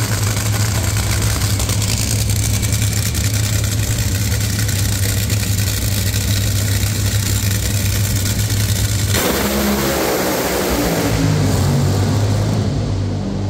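Drag racing cars running very loud under a steady deep drone. About nine seconds in the sound changes, and a falling tone follows as it dies down near the end.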